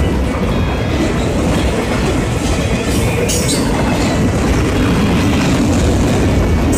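Freight train of autorack cars passing close by, a steady loud rumble of steel wheels on rail, with a brief high wheel squeal about three seconds in.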